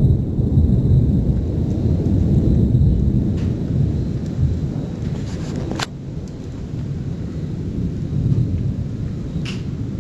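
Thunder rumbling low and continuously during a lightning storm, with a sharp click about six seconds in and a brief crackle near the end.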